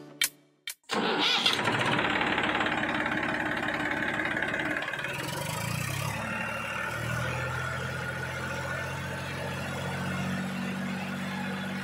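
DIY mini tractor running: an engine-like sound starts about a second in and runs steadily, settling into a lower, even hum about halfway through.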